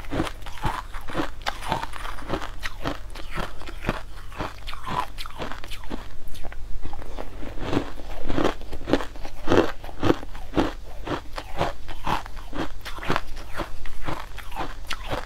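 Pink crushed frozen ice crunched between the teeth, a rapid, uneven run of crisp crunches several times a second, somewhat louder in the second half.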